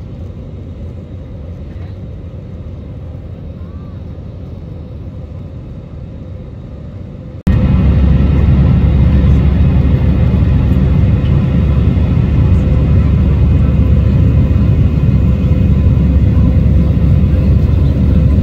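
Jet airliner cabin noise heard from a window seat over the wing while the plane climbs after takeoff: a steady deep engine and airflow rumble. About seven and a half seconds in it cuts abruptly to a much louder rumble.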